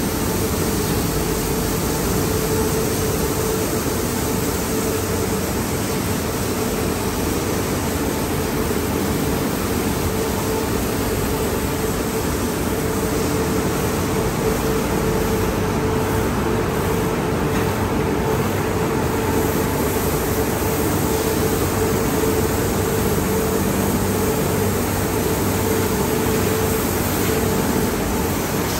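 Automatic tunnel car wash running: high-pressure water jets spraying the car's sides and wheels, a steady hiss over a constant machine hum.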